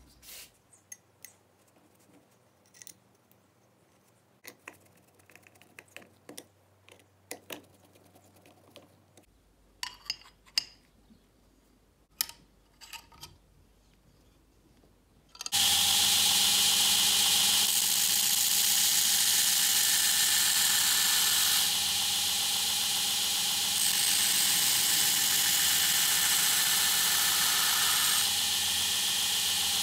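Scattered light clicks and knocks of an aluminium bevel jig and a steel C-clamp being handled. About halfway through, a belt grinder starts up and runs steadily and loudly, its level dropping and rising a few times.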